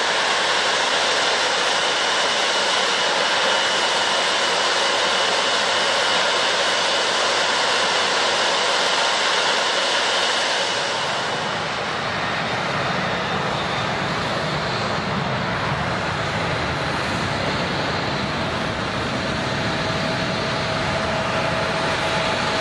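Jet airliner's engines: a loud hiss with a steady high whine, which about halfway through gives way to a lower rumble as the aircraft passes.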